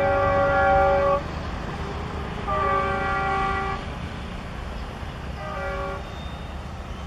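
Diesel locomotive's multi-tone horn sounding three blasts over a steady low engine rumble. One blast stops about a second in, a second blast of about a second follows a moment later, and a shorter, fainter one comes near the end.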